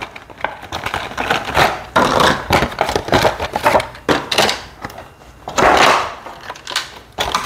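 Toy packaging being handled and torn open: plastic bags crinkling and a cardboard box rustling and tapping in quick, irregular bursts of noise, with a louder stretch of crinkling a little past halfway.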